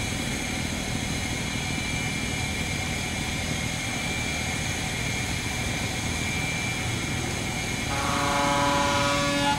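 River barge engine running steadily, with one horn blast about eight seconds in that holds a steady pitch for about a second and a half.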